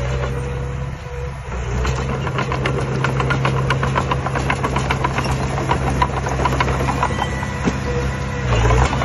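Diesel engine of heavy construction equipment running steadily, with a quick run of sharp clicks and knocks through the middle; the engine gets louder briefly near the end.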